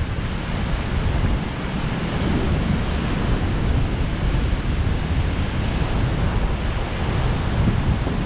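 Ocean surf breaking on the beach, heard as a steady rushing noise, mixed with wind buffeting the microphone in an uneven low rumble.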